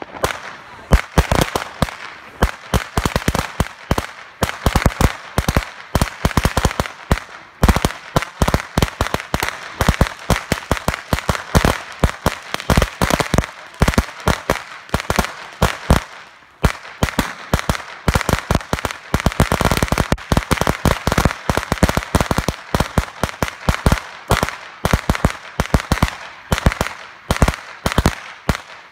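A long string of firecrackers, a 500-cracker string, going off on the ground: rapid, irregular sharp bangs, many a second, without letup.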